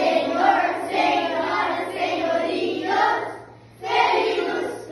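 Children's voices singing together, in two phrases with a short break about three and a half seconds in.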